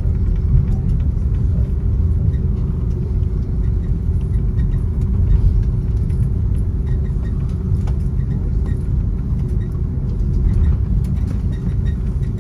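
Cabin rumble of an Airbus A330-200 rolling along the runway after touchdown, with its ground spoilers still raised. A heavy, even low rumble from the wheels and engines carries a faint steady hum, heard from inside the cabin.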